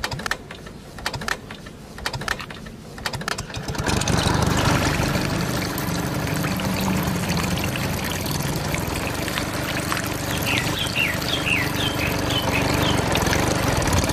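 A few light clicks, then about four seconds in a small engine starts and runs steadily. A handful of short high chirps sound over it partway through.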